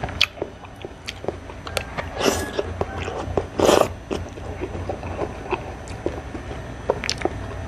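Close-miked eating sounds of a person eating boiled squash and greens by hand: wet chewing and frequent small mouth clicks, with two brief louder bursts about two and three and a half seconds in.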